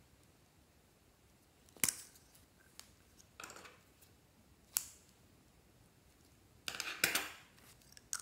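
Scissors snipping through a lipstick stick and plastic lipstick tubes and caps clicking as they are handled. A handful of separate sharp clicks and snips, with a short cluster of them near the end.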